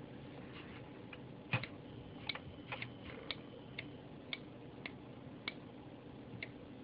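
A series of light, irregular clicks, about ten over five seconds, the loudest about a second and a half in, from the upper arm of a homemade spot welder being worked by hand and the limit switch that the lowered arm closes.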